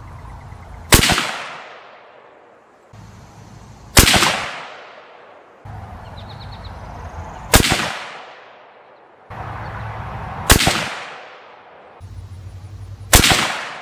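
Five shots from a Ruger American bolt-action rifle in .30-06 Springfield, about three seconds apart, each ringing out into a long fading echo.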